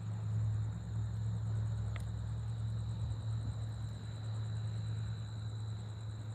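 Crickets trilling steadily in high continuous tones over a low, steady hum, with one faint tick about two seconds in.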